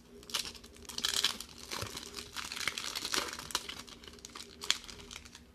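Foil wrapper of a 1994 Pacific NFL trading-card pack being torn open and peeled back by hand, crinkling and crackling throughout. The crackles are thickest about a second in, with one sharp crackle near the end.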